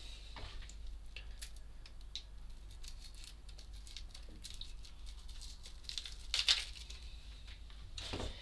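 Dry, papery onion skin being peeled off halved onions by hand, with scattered soft crackles and small tearing sounds and a louder rustle about six and a half seconds in.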